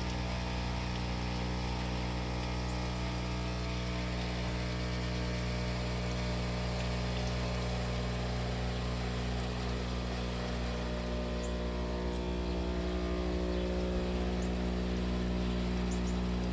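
MrCool 4-5 ton inverter heat pump outdoor unit humming steadily in reverse-cycle defrost, its compressor running to melt ice off the coil. The hum's tones shift a little about twelve seconds in.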